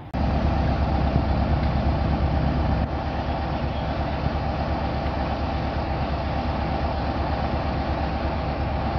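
British Rail Class 47 diesel locomotive's Sulzer twelve-cylinder engine idling steadily while the locomotive stands at the platform, a low, even running note.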